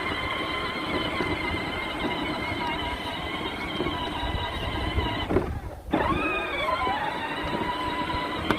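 Ride-on snow-plough vehicle's motor whining steadily as it drives. About five and a half seconds in it cuts out briefly, then whines back up, rising in pitch as it picks up speed again.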